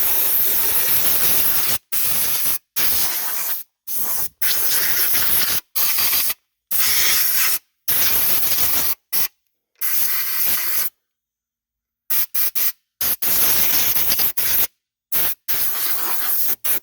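Drilling new bolt holes, heard as a loud rushing hiss in about a dozen short bursts that each start and stop abruptly, with silent gaps between.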